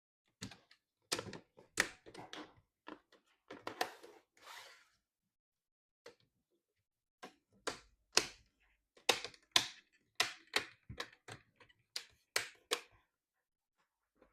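Plastic LCD bezel of a Dell Inspiron 15 5559 laptop being pressed back onto the screen lid, its clips snapping into place: a series of irregular sharp clicks and snaps in two clusters, with a pause of about two seconds in the middle.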